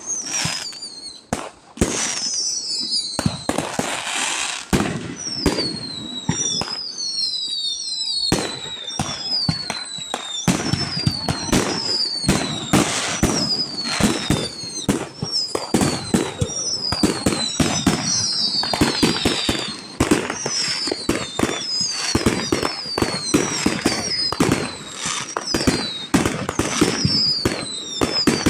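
Fireworks going off in a rapid, dense run of bangs and crackling pops, laced with many short high whistles that fall in pitch.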